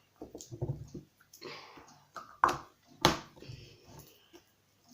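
Slime of glue, borax solution and shaving cream being mixed in a bowl: irregular wet squishing and clicking, with two louder sharp smacks about two and a half and three seconds in.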